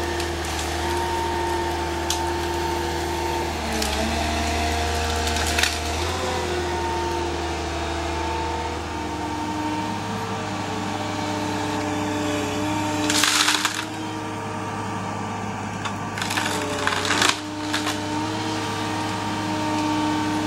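Carrier machine's engine and hydraulics running steadily, with held tones that dip in pitch now and then as the tree-felling shear gripper works. Wood cracks and splinters in two loud bursts, about two-thirds of the way in and again a few seconds later.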